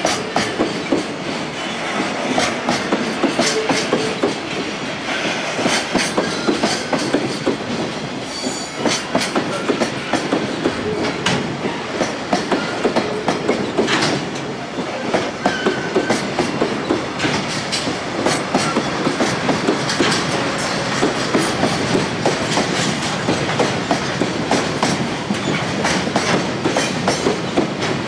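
Train wheels clattering over rail joints, a steady run of rhythmic clickety-clack as a line of railcars rolls past.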